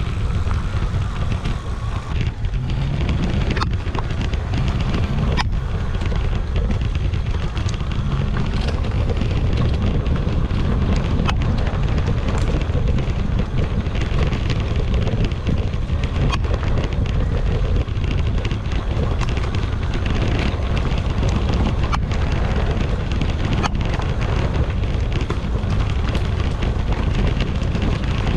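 Wind buffeting the microphone of a moving e-bike riding a dirt forest trail, over the rumble of its tyres on the ground, with scattered sharp knocks and rattles from bumps.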